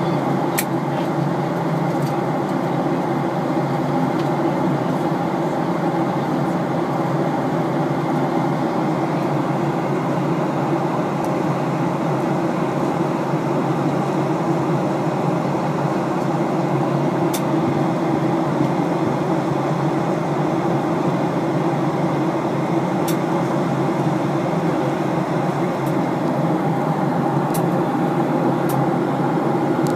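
Steady cabin drone of a passenger aircraft in cruise, engine and airflow noise heard from inside the cabin. A few faint ticks sound over it.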